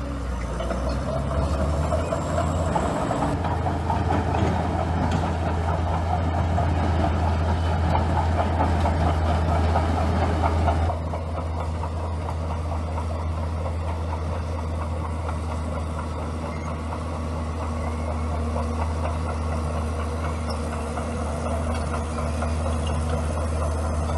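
Bulldozer's diesel engine running steadily with a deep hum. It works harder and louder for several seconds, then drops back suddenly about halfway through.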